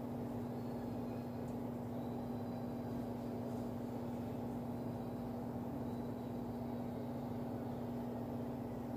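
Steady low machine hum with one strong, even humming tone, unchanging throughout.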